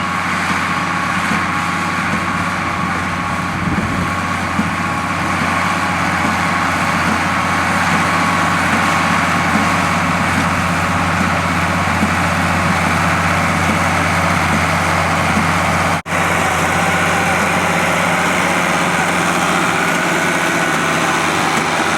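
Engine of farm haying machinery running steadily, with a brief dropout about sixteen seconds in.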